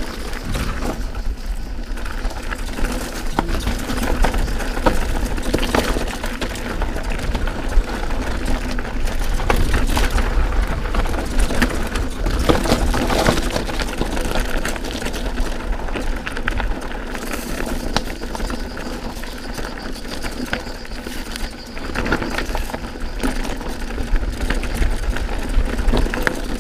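Canyon Spectral AL 7.0 full-suspension mountain bike clattering down a rocky, loose trail: tyres crunching and knocking over stones, chain and frame rattling in a dense, irregular stream of clicks, with a steady low rumble underneath.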